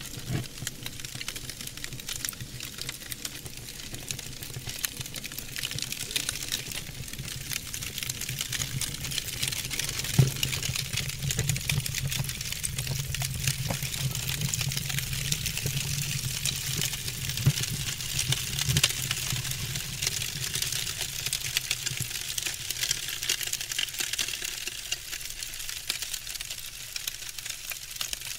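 Fire crackling, with dense rapid crackles and snaps over a steady hiss and a low rumble through the middle stretch. One sharp pop stands out about ten seconds in.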